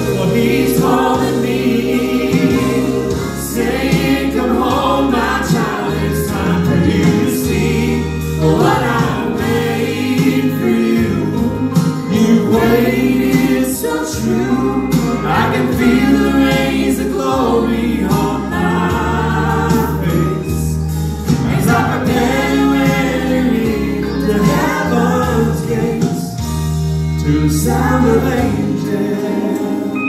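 Gospel trio, a man and two women, singing in harmony over an accompaniment with long held bass notes.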